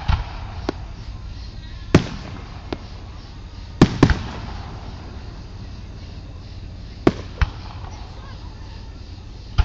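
Fireworks going off in a series of sharp bangs, about eight in all, some in quick pairs, over a steady low rumble.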